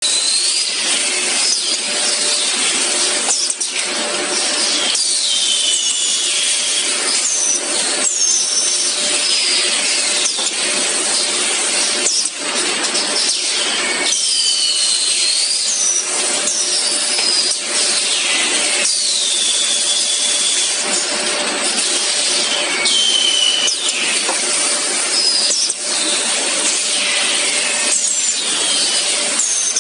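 Tile palletizing line machinery running: a loud, dense mechanical rush with irregular clattering, a faint steady hum, and repeated short high squeals that slide down in pitch, every second or two.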